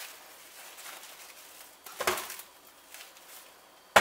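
Faint crinkling of handled cling film, then a knock about two seconds in and a sharper, louder knock near the end as a wooden bowl is taken hold of and shifted on a gas stove's grate.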